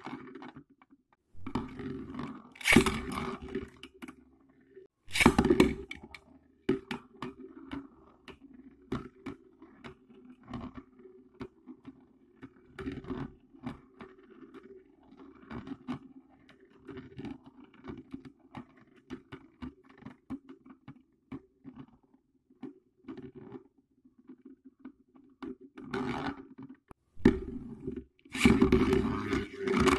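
Beyblade spinning tops whirring across a plastic dish stadium, with frequent small clicks as they knock together and a couple of loud clashes in the first six seconds. In the last few seconds a newly launched top rattles loudly around the bowl.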